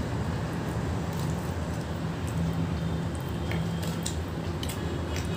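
Soft eating sounds, a few light clicks and squishy chewing of sweets, over a steady low hum.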